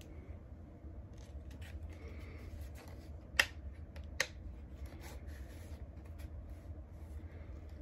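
Plastic parts of a Milwaukee M18 random orbit sander being handled as its dust canister is fitted on: light rubbing and rattling, with two sharp plastic clicks under a second apart about halfway through.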